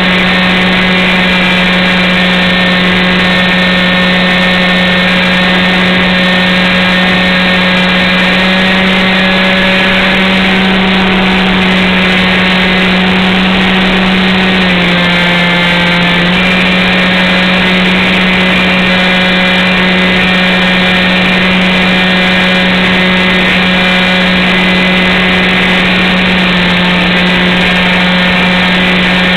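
Model airplane's motor and propeller running steadily at high throttle, a loud droning buzz with a strong steady pitch. About fifteen seconds in the pitch drops briefly as the throttle eases, then comes back up.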